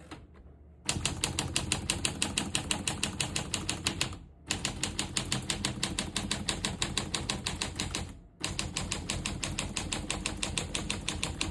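Keys of a 1947 Smith-Corona Clipper manual portable typewriter being typed in quick, even runs of keystrokes, starting about a second in. The typing stops briefly twice.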